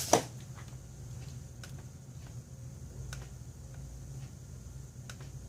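A sharp click right at the start, then a few faint, scattered clicks over a steady low hum.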